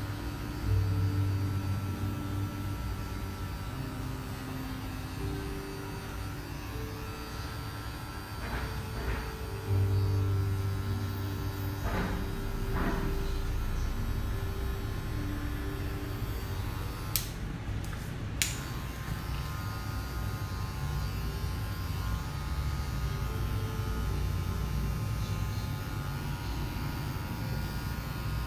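Electric hair clipper running steadily as it cuts short hair on the back and sides of the head for a fade, its hum getting louder for a couple of seconds about a second in and again about ten seconds in. Two sharp clicks sound a little past halfway.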